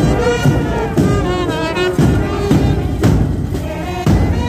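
Marching brass band playing a march: euphoniums and trumpets carry the melody over bass drum beats about once a second.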